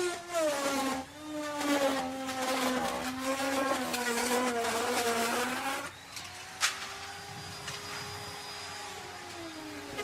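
Electric wood router cutting into wood, its motor running at a lowered pitch under the cut with a rough, noisy edge. About six seconds in the cutting noise drops away and the motor pitch rises as it spins more freely, with one sharp click shortly after.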